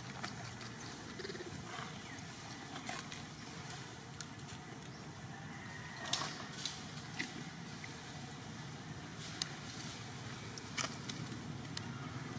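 Faint outdoor background: a low steady rumble with scattered light clicks and rustles, the loudest few about six seconds in.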